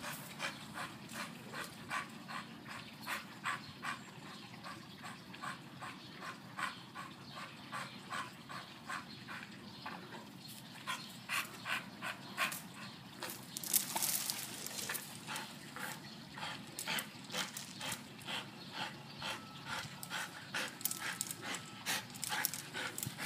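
A dog panting hard in a steady rhythm of about two to three breaths a second, with one brief louder noise about fourteen seconds in.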